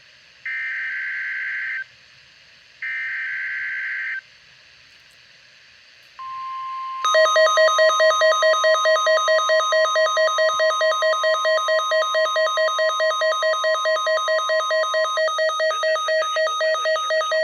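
NOAA Weather Radio SAME test: two screeching header data bursts, then a steady single-pitched 1050 Hz warning alarm tone beginning about six seconds in. A louder pulsing alarm beep of about four a second joins a second later and continues after the steady tone stops near the end.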